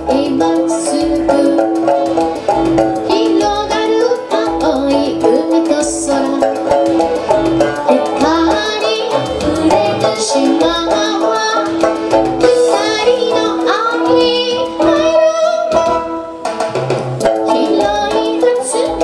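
A woman sings an Okinawan pop song live to her own sanshin, with Roland JUNO keyboard accompaniment, a held note and a steady beat in the bass.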